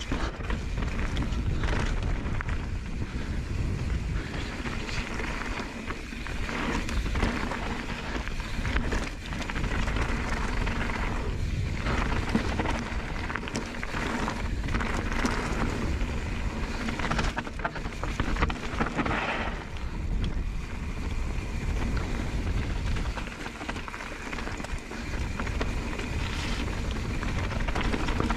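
Mountain bike descending a loose slate-scree trail: tyres crunching and clattering over broken slate, with the bike rattling over the rough ground and wind buffeting the microphone.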